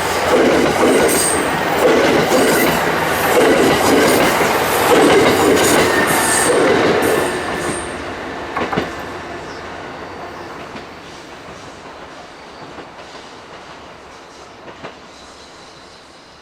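Limited express Hamakaze, a KiHa 189 series diesel train, passing with a rhythmic clatter of wheels over the rail joints. The clatter is loud at first and fades away steadily from about eight seconds in as the train recedes.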